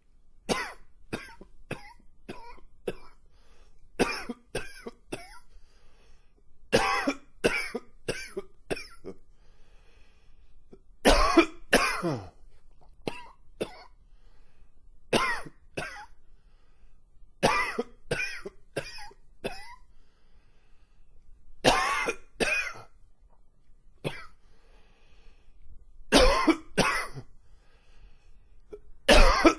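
A man coughing in repeated fits, each a quick run of two to four short coughs, a new fit every two to three seconds.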